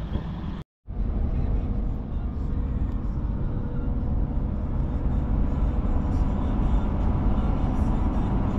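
Steady low engine and road rumble heard from inside a minibus travelling at speed, starting after a brief gap less than a second in.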